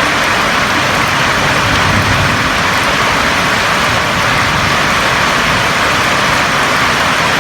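Steady rain falling on a roof, an even hiss with no breaks.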